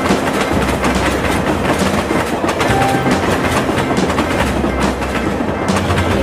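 Steady, dense rattling clatter with a low hum underneath.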